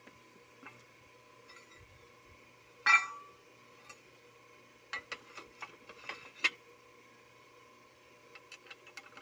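A sharp metal clink with a short ring about three seconds in, then a run of lighter metallic clicks and knocks, from hand tools and fittings striking the pump's riser pipe as it is worked at the wellhead.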